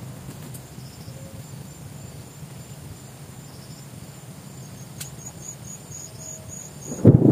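Faint high-pitched insect chirping, cricket-like, in short repeated pulses that come in a quick run near the end, over a low background rumble. In the last moment a sudden loud low rumble breaks in.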